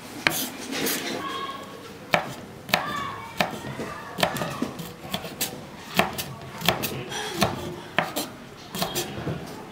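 Kitchen knife chopping fresh coriander and red chillies on a bamboo cutting board: the blade strikes the board in sharp, unhurried knocks, about one or two a second.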